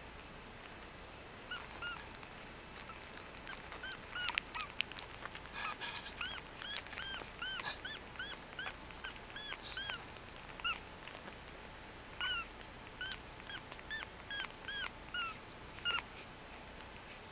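Yorkshire Terrier puppies, 18 days old, squeaking while they nurse: short high arched squeaks, a couple a second, starting about a second and a half in and running on to near the end. A few sharp clicks come about four seconds in.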